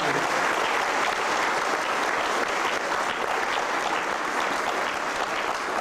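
Audience applauding steadily, a dense sustained clapping from many hands.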